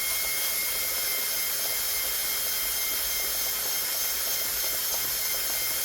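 High-speed rotary tool running at a steady speed with a high whine and hiss, sanding a high spot out of a chainsaw cylinder bore on the intake side where the piston rings hang up.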